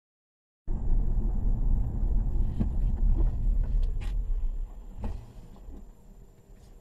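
Car cabin noise picked up by a dashcam: a deep, steady rumble of tyres and engine while driving. It cuts in suddenly under a second in and eases off about four seconds later as the car slows toward a stop. A few faint clicks sound over it.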